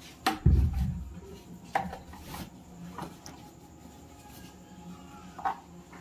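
Bedsheets being pushed by hand into the drum of a front-loading washing machine: cloth rustling, a dull thump about half a second in, and a few sharp knocks as hands and fabric meet the drum and door rim.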